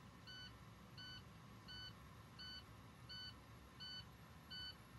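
A truck's dash warning beeper sounding faintly, seven short beeps about 0.7 seconds apart, all the same pitch. With the ignition on and no air in the tanks, this is the truck's low-air warning.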